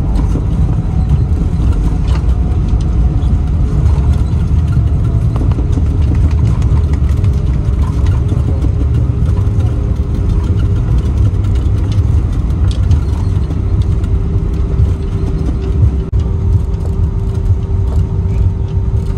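Steady low rumble of engine and airflow noise inside the cabin of an Airbus A319 airliner. A faint steady hum comes in about a third of the way through and holds.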